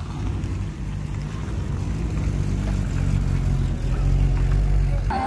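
An engine idling steadily: a low, even hum that grows a little louder about four seconds in.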